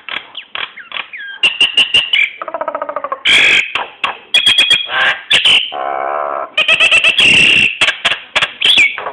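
A jalak nias, a starling, singing a loud, varied song. It runs rapid clicks and chatters into whistled notes and buzzy calls, with a harsh rasping stretch about seven seconds in.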